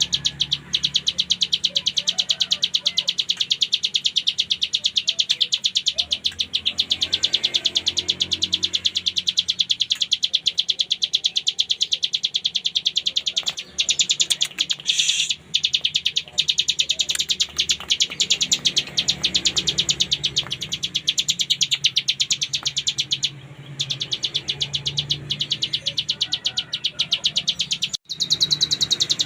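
Ciblek gunung (hill prinia) singing a continuous rapid buzzing trill, a fast run of high notes repeated many times a second with only a few brief breaks. This is the 'ngebren' song that bird keepers prize in a bird in top singing form (gacor).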